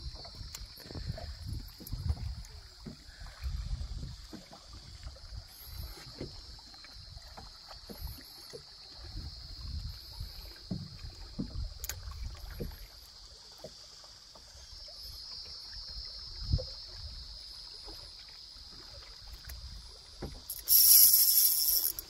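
Water slapping and wind bumping around a small boat, with a steady high hiss, while a spinning-rod lure is retrieved. Near the end a loud, rasping buzz starts suddenly: the drag of a Kanicen Nix 1000-size spinning reel giving line as a hooked fish runs.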